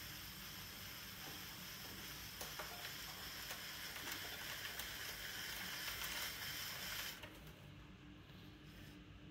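Wire loop trimming tool scraping terracotta clay on a large bowl turning on a potter's wheel: a steady hissing scrape that stops abruptly about seven seconds in as the tool comes off the clay.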